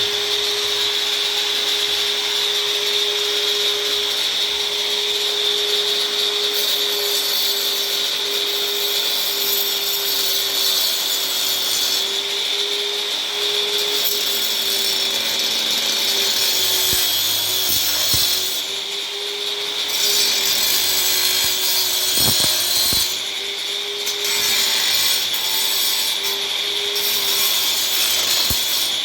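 Angle grinder running steadily with a constant motor whine and a hissing grind from the disc on the work. The grinding eases briefly twice, about two-thirds of the way through and again a little later.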